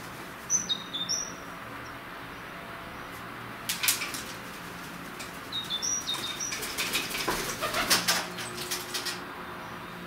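Feral pigeon's wings flapping in several bursts of rapid wingbeats, the longest run filling most of the second half. A few short, high chirps from a small bird sound in between.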